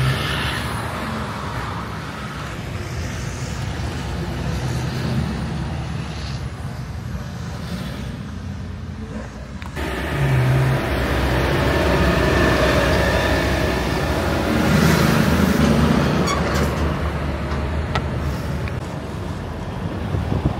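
Road traffic with semi-trucks driving past: steady engine and tyre noise. The sound changes abruptly about ten seconds in and gets louder as another truck goes by.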